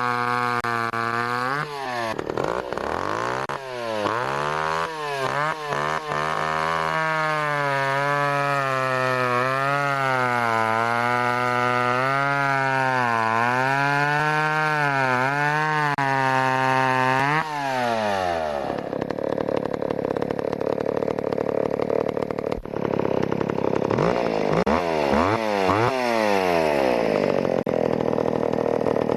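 Vintage John Deere two-stroke chainsaw, made by Echo, running at high revs with the throttle blipped so the engine note rises and dips repeatedly. About eighteen seconds in, the revs fall and the sound turns rougher and noisier as the chain works through a birch log, dropping and picking up again a few times.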